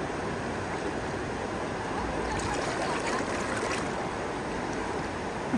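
River water rushing steadily over a shallow riffle of small rapids.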